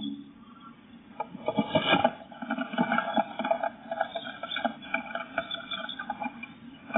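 Blue tit moving about inside a wooden nest box while nest-building, its feet scratching and tapping on the wooden floor and walls and rustling the moss it has carried in. A quick, irregular run of scrapes and taps starts about a second in.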